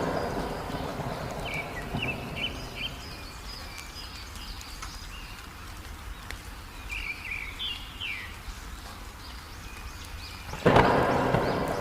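Heavy rain hissing steadily over a low rumble, with a few short bird chirps twice in the middle. A thunderclap fading at the start, and another loud sudden thunderclap near the end.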